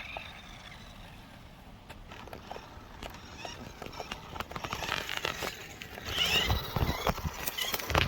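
Wood fire crackling and popping in a campfire pit, with irregular sharp pops that grow busier and louder in the second half.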